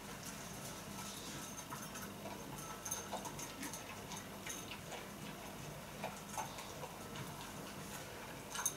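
A whippet eating dry food from a bowl: scattered, irregular little crunches and clicks of kibble and the bowl, over a faint steady hum.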